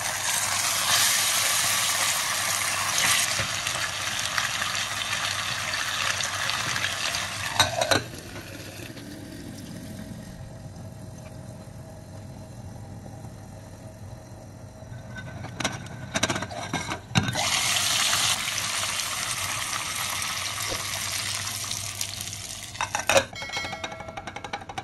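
Raw fish steaks sizzling as they go into hot oil with fried garlic and shallots in a clay pot. The sizzle cuts off about eight seconds in, a few clinks follow, and then loud sizzling and bubbling come back under a glass lid, ending in a short rattle of clicks.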